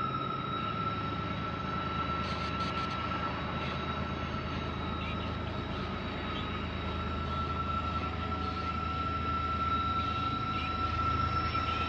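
Diesel-electric freight locomotives of a heavy coal train working hard at low speed up a mountain grade: a steady low engine drone with a constant high-pitched whine above it.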